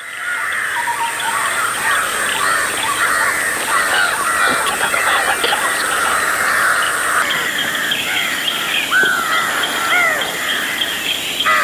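A flock of birds calling at once, a dense chatter of many short, overlapping calls, with a few clearer separate calls rising and falling about nine and ten seconds in.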